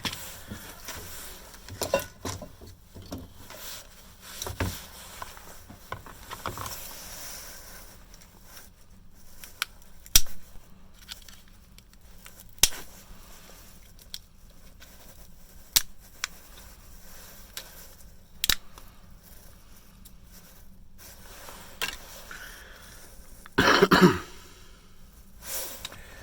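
Sparse sharp clicks and small scrapes of hand tools and plastic and metal parts as a piece is worked off an old mobile phone's circuit board, with a short cough near the end.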